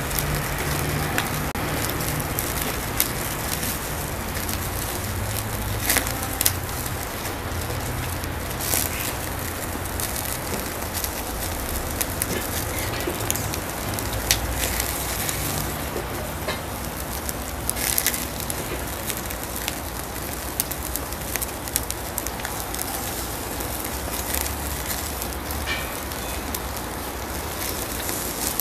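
Charcoal fire crackling in a kettle grill under meat: a steady hiss with scattered sharp pops.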